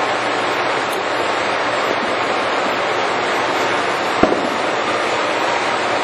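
Giddings & Lewis 340T horizontal boring mill running steadily at a low spindle speed during a spindle-speed test, giving an even mechanical running noise, with one sharp knock a little after four seconds in.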